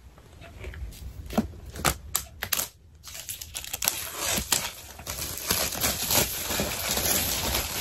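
Plastic wrapping on an iPad Air box being torn off by its pull tab and crumpled. Sharp crackles and tearing snaps come first, then steadier crinkling from about halfway.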